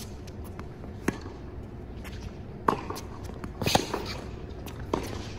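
Tennis rally on a hard court: a tennis ball being struck by rackets and bouncing, four sharp pops about a second apart. The loudest is a forehand hit close by, about three and a half seconds in.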